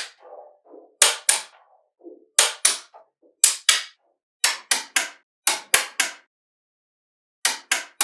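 Small metal magnetic balls clicking as they snap onto one another, in quick pairs and threes with a faint rattle of balls rolling between some of the clicks in the first half.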